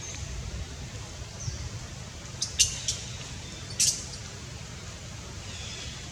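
Short high-pitched monkey squeaks: three quick ones about two and a half seconds in and one more about a second later, over a steady low rumble.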